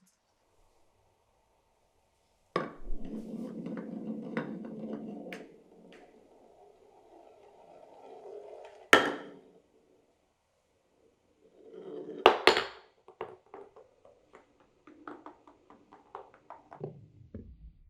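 Glass marbles running through a wooden marble run. A sharp click starts a steady rolling rumble of about three seconds, and a softer roll follows. There are hard clacks about nine and twelve seconds in, then a run of quick ticks and rattles near the end.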